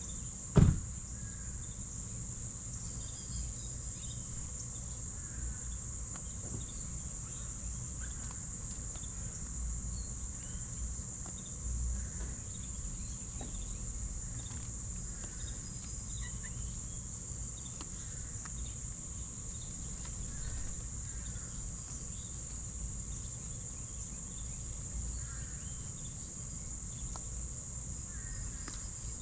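Insects trilling in a steady, unbroken high-pitched drone, with faint scattered bird chirps over it. A single sharp knock about half a second in is the loudest sound.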